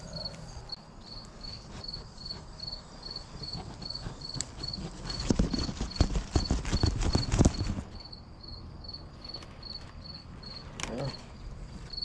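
Broccoli leaves and stalk crackling and rustling as a head of broccoli is picked by hand, a dense cluster of crackles about five to seven and a half seconds in. A cricket chirps steadily throughout, about three chirps a second.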